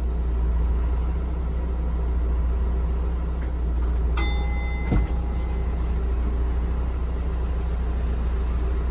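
Asa Seaside Railway DMV93 dual-mode vehicle's diesel engine running with a steady low rumble. About four seconds in a short ringing chime sounds, and a knock follows a second later.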